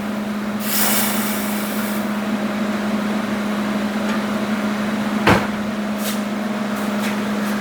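Steady machine hum with a hiss lasting about a second and a half, just after the start. About five seconds in, a single sharp metallic clank, as of a pickup magnet snapping onto the freshly cut hot steel gusset, followed by a couple of faint ticks.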